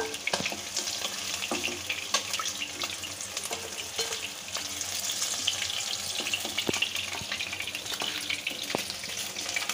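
Katla fish pieces frying in hot mustard oil in a wok: a steady sizzle with quick crackles and an occasional sharper click.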